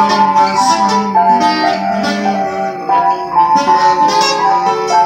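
An electronic keyboard and an acoustic guitar playing an instrumental piece together: held keyboard notes that change about every second over the guitar's chords.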